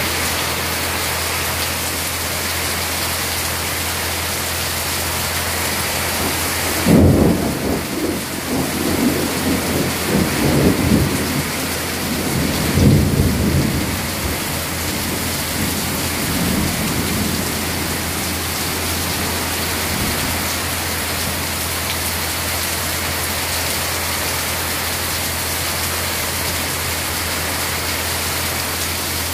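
Heavy rain pouring steadily. About seven seconds in, a clap of thunder breaks and rumbles on for several seconds, swelling again around thirteen seconds before it dies away.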